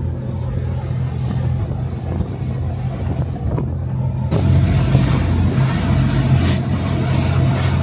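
Passenger ferry's engines droning steadily with rushing water and wind noise, growing louder and fuller about four seconds in.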